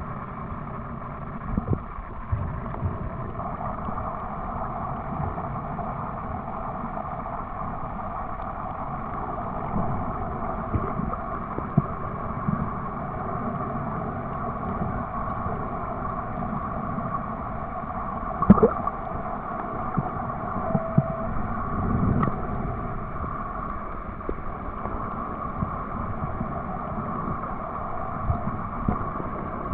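Muffled underwater ambience picked up by a submerged camera: a steady hiss over a low rumble, with scattered clicks and knocks and one sharper knock about two-thirds of the way through.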